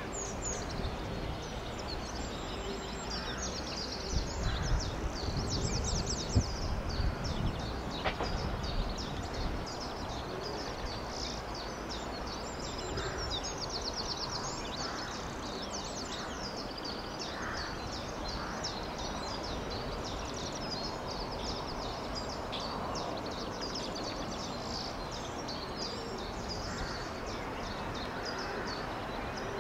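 Small birds singing and chirping over a steady background hiss, with a low rumble that peaks about four to eight seconds in.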